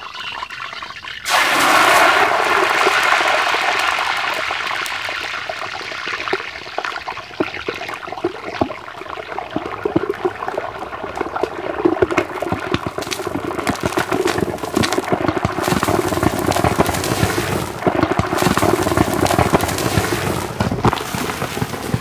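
Hot cooking oil in an iron karahi sizzling and spitting violently after ice cream is dropped in: a sudden loud hiss starts about a second in, then goes on as a continuous sizzle dense with sharp crackles and pops as the water in it boils off in the oil.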